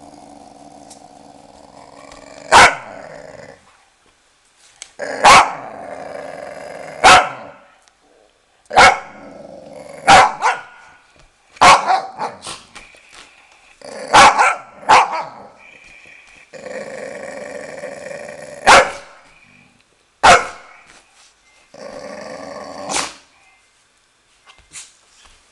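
Dogs growling at each other, a steady rumbling growl broken by about a dozen short, sharp barks and snaps.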